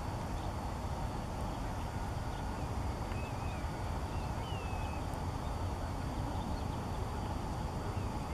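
Steady outdoor background noise, a low rumble under a hiss, with a few faint, short, wavering high chirps about three to five seconds in and again near the end.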